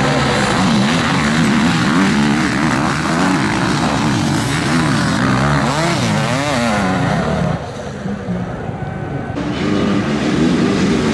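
Several motocross dirt bike engines revving hard on a hill climb, their pitch rising and falling with throttle and gear changes. The engine noise drops for about two seconds near the end, then comes back.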